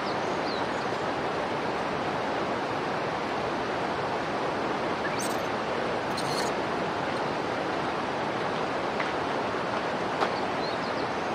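Steady rushing of running water, even and unbroken, with a few faint short high chirps near the start and two brief high hissing sounds about five and six seconds in.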